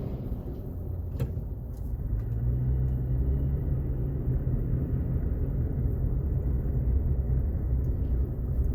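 Road and engine rumble heard from inside a car cabin at freeway speed, swelling about two seconds in as a semi-truck passes alongside. A single sharp click sounds just after a second in.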